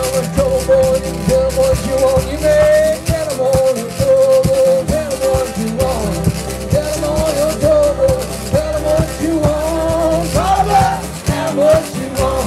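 Live acoustic blues: a twelve-string acoustic guitar being picked, with a washboard scraped and tapped in rhythm. A wavering vocal line is sung over them.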